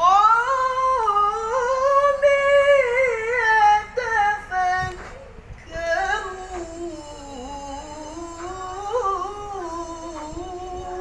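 A man's voice reciting the Quran in melodic tilawah style, drawing out long ornamented notes. It holds a high, wavering line for the first few seconds, breaks for a breath around five seconds in, then carries on in a lower register.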